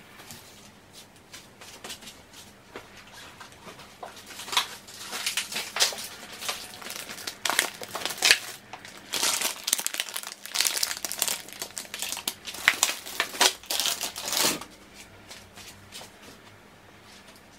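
Plastic food packaging crinkling in irregular bursts as grocery packs are picked up and handled, starting about four seconds in and stopping a few seconds before the end.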